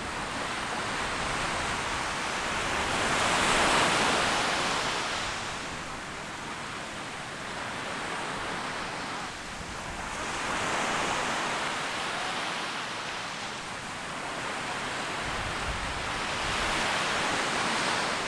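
Small ocean waves breaking and washing up a sandy beach, the surf swelling and fading three times, about every six or seven seconds.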